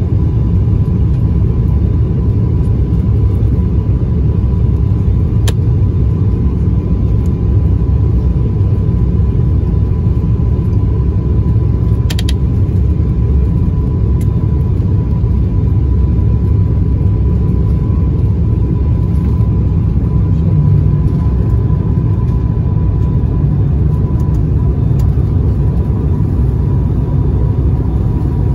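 Steady cabin roar of an airliner on final approach, engine and airflow noise, with a constant thin whine near 1 kHz running through it. Brief clicks about five seconds in and again about twelve seconds in.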